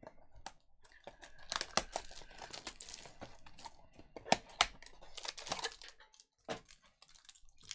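Panini Chronicles trading card box being opened by hand and a cellophane-wrapped card pack taken out: cardboard rustling and wrapper crinkling, with scattered sharp taps and clicks.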